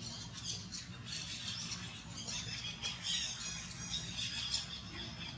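Many short, high-pitched chirps and squeaks, animal calls in quick succession, over a low steady hum.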